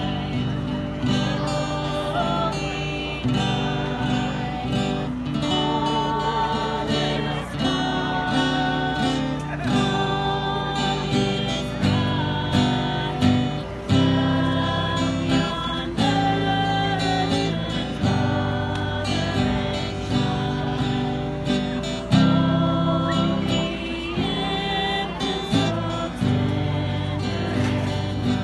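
A group of carolers singing a Christmas carol together, accompanied by a strummed guitar.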